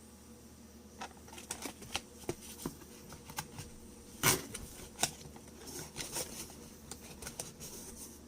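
Irregular clicks, taps and rustles of product packaging being handled, with one louder knock about four seconds in.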